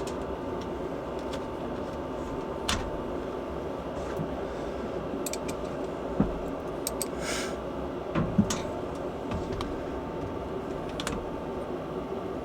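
Scattered light clicks and taps of hands handling cables and fittings, over a steady background hum with a faint steady whine.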